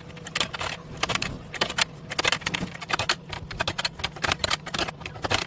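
Irregular metallic clinking and rattling, several sharp knocks a second, over a steady low hum.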